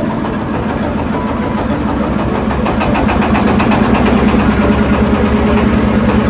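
Engine of a wooden river car ferry running with a steady fast pulse. It grows louder over the first few seconds and then holds steady.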